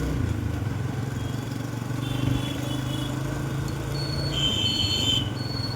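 Motorcycle engine running at low speed, a steady low drone. Short high-pitched tones sound around the middle and again near the end, with a string of quick repeating beeps over the last couple of seconds.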